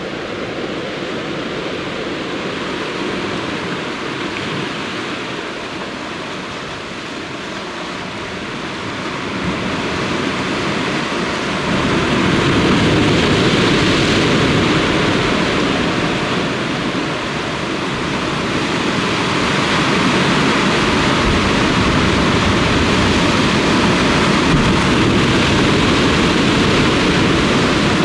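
Sea surf washing against a rocky shore: a steady rushing that swells louder about twelve seconds in.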